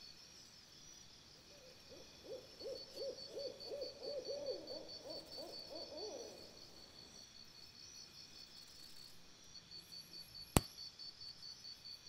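A rapid run of about a dozen low, pitched animal calls, about three a second, over a steady high-pitched pulsing insect chirp. A single sharp click comes near the end.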